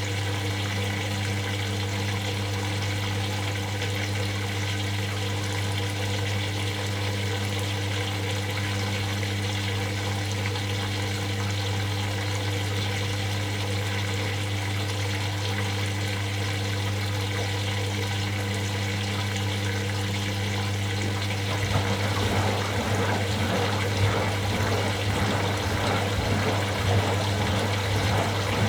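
Washing machine running: a steady electric hum under the rush of water inside it. About 21 seconds in, the water sound becomes louder and more uneven.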